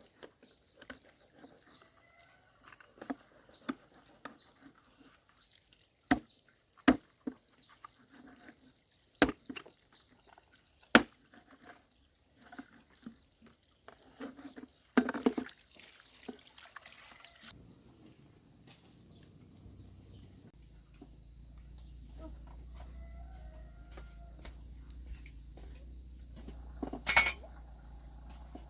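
Steady high insect drone, with irregular sharp knocks and clatters of handwork scattered through it, a few of them loud.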